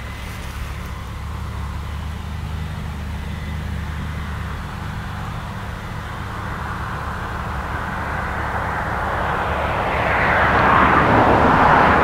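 Case IH 9120 combine harvester and the tractor beside it running steadily under load, a low engine drone, while the combine unloads wheat into a trailer on the move. A rushing noise swells louder near the end.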